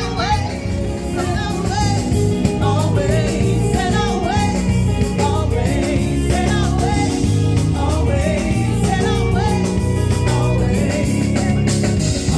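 A singer's voice running through wavering, gospel-style melodic lines over steady accompaniment with a strong bass and held chords.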